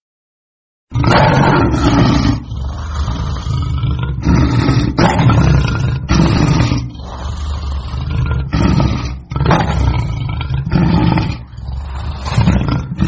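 Lion roaring: a series of deep roars and grunts, each about half a second to a second long with short gaps between them, starting about a second in.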